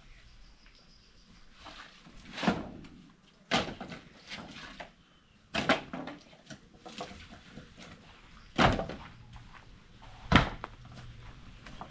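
A series of sharp knocks and thuds, about half a dozen at irregular intervals, the loudest one near the end.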